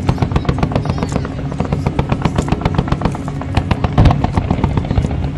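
Fireworks barrage firing in rapid succession: a fast, dense string of pops and bangs, several a second, with one heavier boom about four seconds in.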